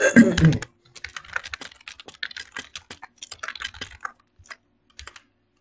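Typing on a computer keyboard: quick runs of key clicks with short pauses, stopping a little after five seconds. A brief voice sound comes at the very start.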